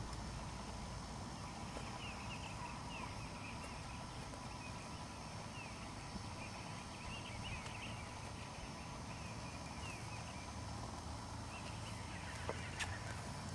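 Bird calls in short chirping groups that repeat every few seconds over steady low background noise. A few soft hoof thuds come near the end as the horse walks closer.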